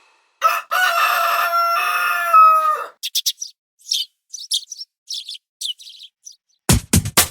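Rooster crowing once, a held call of about two and a half seconds, followed by a string of short, high bird chirps. A music track with a drum-machine beat comes in near the end.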